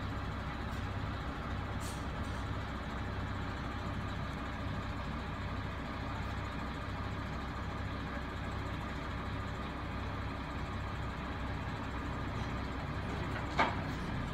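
HOWO 8x4 wrecker truck's 336 hp diesel engine running steadily with a low, even hum. A brief sharp sound cuts in near the end.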